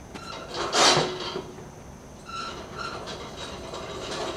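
An upright freezer being tilted and moved by hand. There is a loud scrape a little under a second in, then quieter rubbing, rattling and short squeaks as it shifts.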